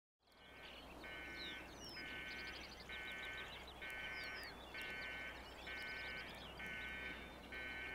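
Outdoor animal chorus: a pulsing call repeats about once a second, each pulse lasting about half a second, with short higher chirps and whistles over it and a steady low hum beneath. It fades in at the very start.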